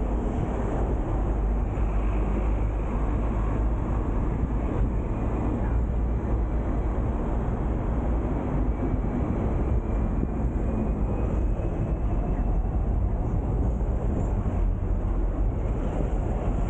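Hong Kong double-decker electric tram running along its street rails, heard on board: a steady low rumble of wheels on track with road noise, and a faint high whine that rises slightly in the middle.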